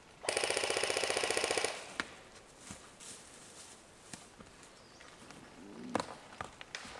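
An airsoft electric rifle fires a full-auto burst: a rapid buzzing string of shots lasting about a second and a half. Scattered light snaps follow, with a louder one near the end.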